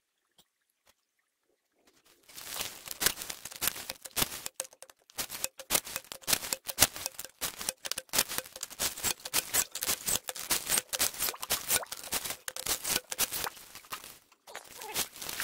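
Gravel and water rattling through a PVC hand suction dredge, a dense, irregular crackle of clicks that starts about two seconds in, with a short break near the end.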